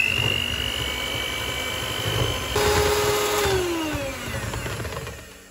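Electrolux electric hand mixer running with its beaters whisking waffle batter in a stainless steel bowl, a steady high motor whine. It gets louder about two and a half seconds in, then winds down with falling pitch as it is switched off, fading out near the end.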